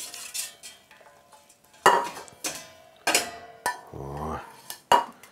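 Several metal clanks and knocks as a wire-mesh basket insert is lifted out of a stainless steel stockpot and set down in a metal bowl, some strikes ringing briefly.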